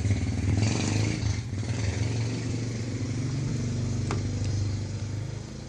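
A motor engine running steadily, a low drone that fades near the end, with a single sharp click about four seconds in.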